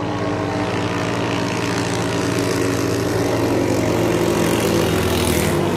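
Engine of a racing katinting longtail boat running flat out in a steady high-revving drone. It grows louder as the boat speeds past near the end.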